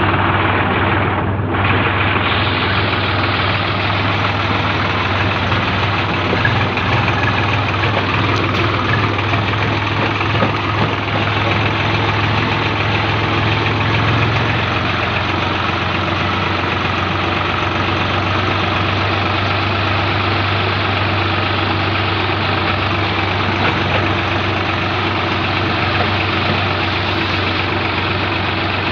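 Swaraj 834 XM tractor's three-cylinder diesel engine running steadily at an even, low speed as the tractor drives along.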